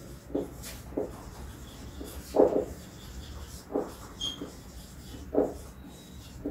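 Marker pen writing on a whiteboard: about six short rubbing strokes, the strongest about two and a half seconds in.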